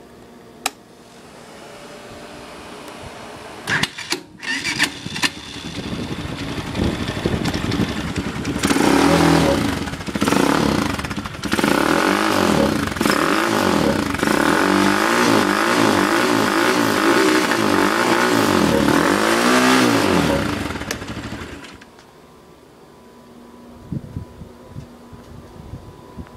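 A 250cc ATV engine is started about four seconds in and settles into running. It is then revved up and down over and over for about twelve seconds before being shut off, stopping abruptly about 22 seconds in.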